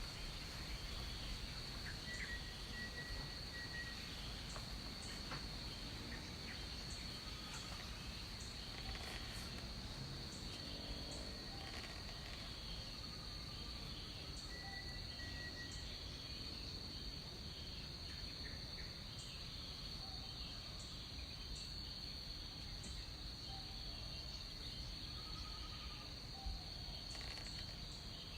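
Tropical rainforest ambience: a steady, high-pitched insect drone, with scattered short bird calls and whistles over it.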